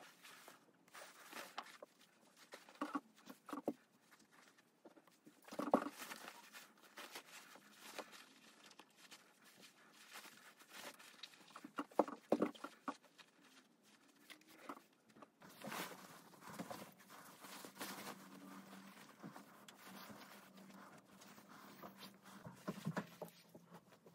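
Quiet handling sounds of silk fabric being folded and pressed: soft rustling with a few light knocks and taps from a steam iron being set down and moved over the cloth.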